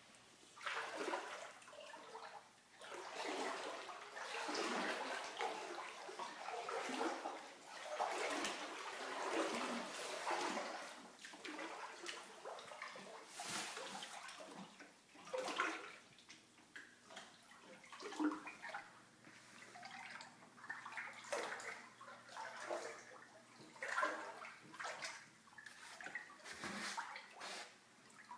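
Water splashing and sloshing in irregular surges, some louder than others.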